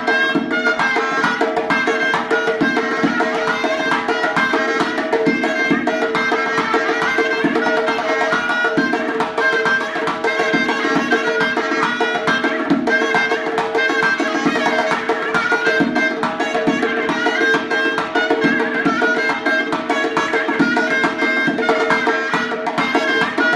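Surnay, the Uzbek double-reed shawm, playing a loud, unbroken folk melody over a fast beat on a dovul drum struck with the bare hands.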